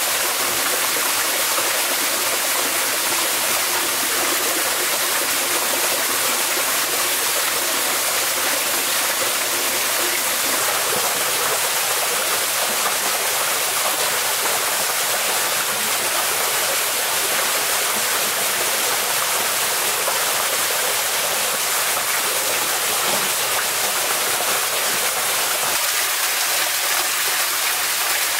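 Small forest waterfall and stream rushing steadily, a constant hiss of falling water.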